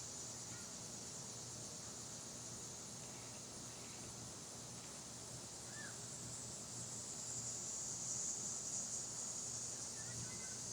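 Summer insects, crickets or similar, making a steady high-pitched buzzing chorus that swells a little about eight seconds in. A bird gives a faint short chirp near the middle and again near the end.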